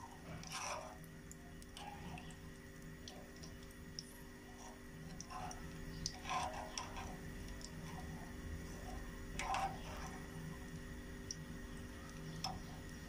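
A metal spoon clinking and scraping against a metal frying pan while stirring hot oil that has started to foam as it comes to the boil. About half a dozen separate clinks, the loudest around six and nine to ten seconds in, over a steady low background.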